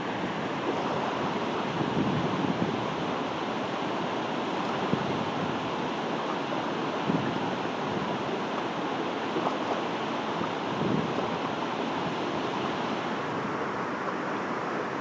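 River water rushing steadily over granite slabs, a constant even hiss, with a few brief louder bumps.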